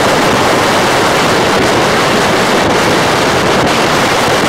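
Wind rushing hard over the microphone on a moving motorbike: a loud, even rush with no clear engine note heard through it.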